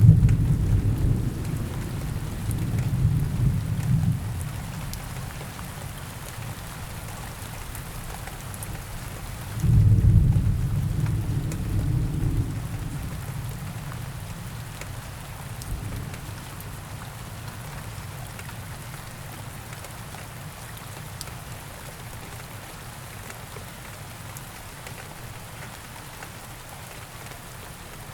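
Heavy rain falling steadily, with rolling thunder: a rumble over the first few seconds, then a louder clap about ten seconds in that rumbles away over the next few seconds.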